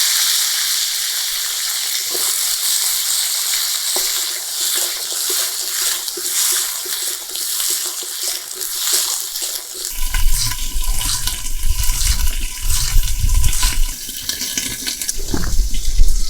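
Pointed gourd (potol) pieces sizzling in hot oil in a kadai: a loud frying hiss that slowly settles. About ten seconds in, a low, uneven rumbling joins the sizzle.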